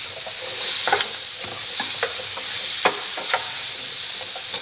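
Garlic and onion sizzling in a hot pan, with a utensil clicking and scraping against the pan several times as they are stirred.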